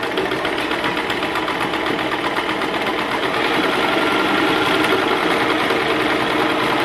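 Electric sewing machine running steadily at speed, its needle stitching through a panel of woven cotton cord.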